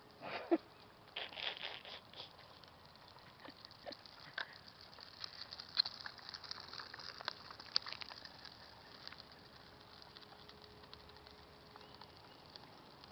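Faint crackling and light rattling of a child's plastic tricycle rolling over asphalt, with irregular small clicks that thin out in the second half.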